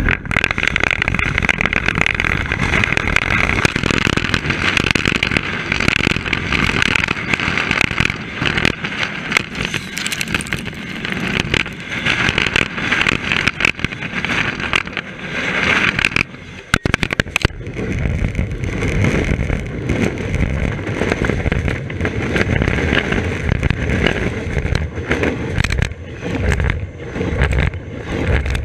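Norfolk Southern freight train running directly over a GoPro on the rail: loud wheel-on-rail rumble and clatter with a high-pitched screech over it for the first half. About sixteen seconds in there is a brief break with sharp clicks as the camera is knocked under the switch, then a steadier rumble with rhythmic low thumps as freight cars roll past overhead.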